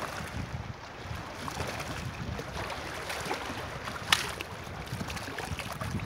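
Shallow seawater lapping and trickling over a rocky shore, with small splashes throughout and one sharp tick about four seconds in. Wind rumbles on the microphone underneath.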